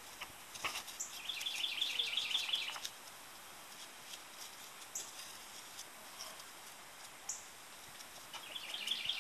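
A bird singing a rapid trill lasting about a second and a half, once about a second in and again near the end, over faint scattered ticks.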